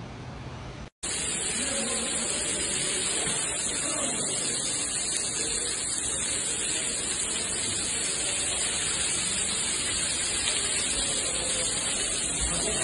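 A brief dropout about a second in, then a steady rushing hiss of water spray and floodwater.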